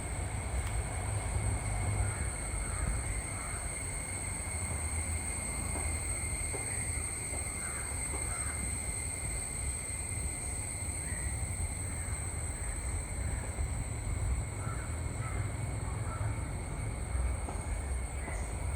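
Crows cawing in short clusters now and then, over a steady high-pitched drone and a low, constant rumble.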